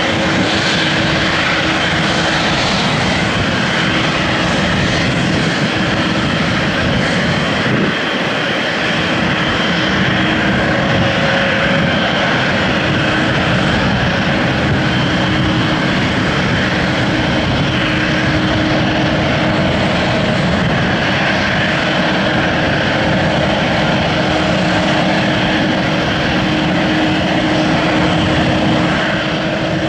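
Boeing 787-8 Dreamliner's twin GEnx turbofan engines running at low taxi power as the airliner taxis past: a steady jet whine over a constant rush of engine noise, with no spool-up.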